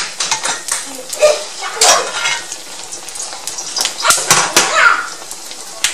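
Fish cakes sizzling as they fry in hot oil in a cast-iron skillet, with metal tongs clicking and clacking against the pan as they are turned. The clacks come in clusters, the loudest about two seconds in and again around four to five seconds.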